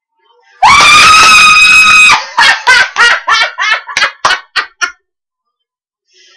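A woman screaming with excitement: one loud, high scream held for about a second and a half, then a quick run of about nine short shrieks that grow shorter and fade out. It is loud enough to distort.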